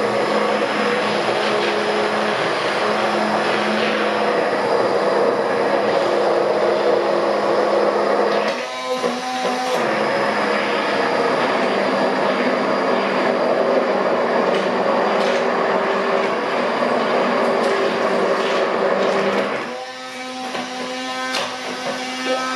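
Hand-held immersion blender running in a stainless steel bowl, pureeing cooked butternut squash to get rid of the chunks. It makes a steady motor whir, breaks off briefly about nine seconds in, and eases off near the end.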